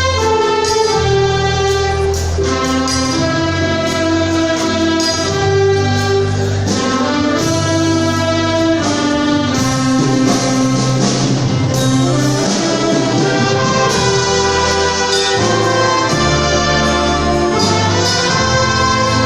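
Church band playing an instrumental passage of a hymn, brass and saxophone holding sustained melody notes over a steady bass line.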